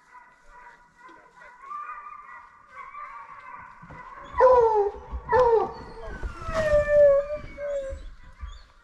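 Hunting hounds baying and howling: a fainter chorus of overlapping drawn-out bays at first, then two loud falling bawls about halfway through and one long, slightly falling howl near the end.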